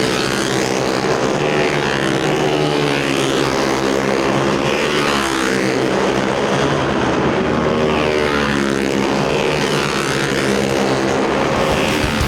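Several 250cc four-stroke racing motorcycle engines running at high revs, their pitch sweeping up and down again and again as they pass.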